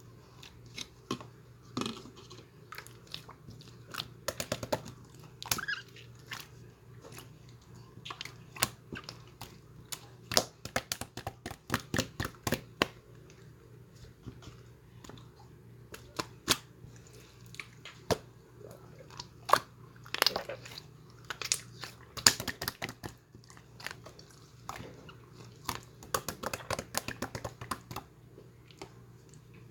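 Slime being squished and stretched by hand, giving irregular sharp clicks and pops. The clicks come in dense flurries in places.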